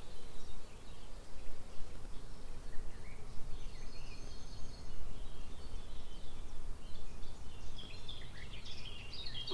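Outdoor field ambience: scattered short bird chirps and calls, coming more often towards the end, over a low, uneven background rumble.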